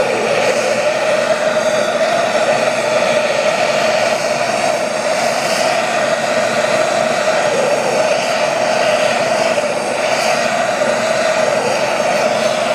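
Gas torch flame burning steadily with an even rushing sound, heating a butt joint in aluminum square tubing as HTS-735-11 brazing rod is melted in.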